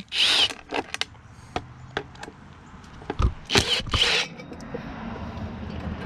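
Cordless power driver spinning out the air cleaner cover bolts in two short bursts about three seconds apart, with a few light knocks between.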